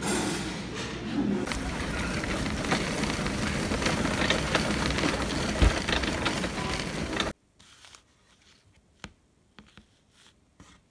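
Dense background noise full of small clatters and rattles that cuts off abruptly about seven seconds in, followed by a quiet room with a few faint clicks and taps.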